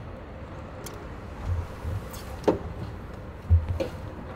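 Low, steady rumble of a truck, with two dull thumps about two seconds apart and a few light clicks.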